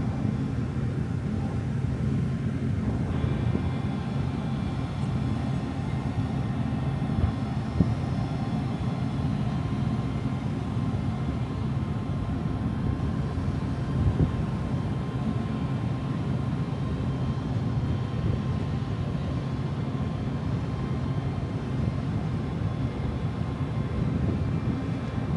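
Steady low drone of a large car ferry's engines and onboard machinery, with faint steady hum tones above it and a couple of light knocks.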